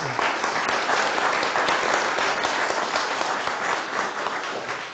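Audience applauding: dense, steady clapping that starts to fade near the end.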